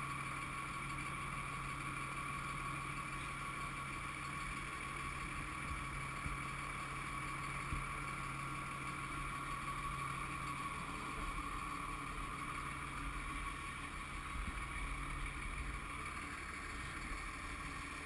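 Steady engine drone and running noise of a fire truck, heard from inside the cab, with a low hum that fades near the end.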